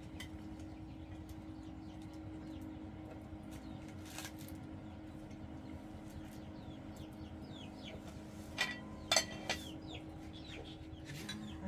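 Chickens clucking and chirping, with a few sharp, louder calls about nine seconds in, over a steady low hum.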